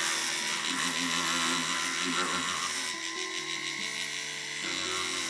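Flexible shaft rotary tool running a sanding drum against the edge of a glued watercolor-paper pendant, with a steady high whine and the rasp of the drum on the paper.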